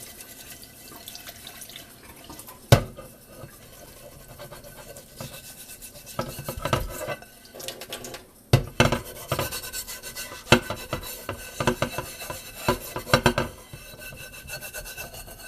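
Scrubbing pad rubbed hard over a microwave turntable plate, in irregular runs of quick back-and-forth strokes that grow busier and louder in the second half. A single sharp knock about two and a half seconds in.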